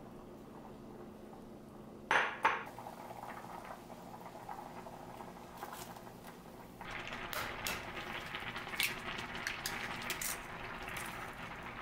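Two sharp clanks of cookware about two seconds in, then a saucepan of noodle soup on the stove boiling hard, a dense bubbling with many small crackles.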